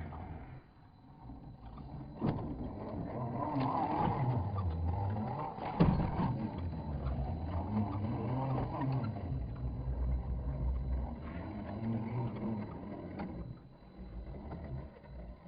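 Scale RC rock crawler's electric motor and drivetrain running at low speed, the pitch rising and falling with the throttle, with a sharp knock about two seconds in and a louder one near the middle.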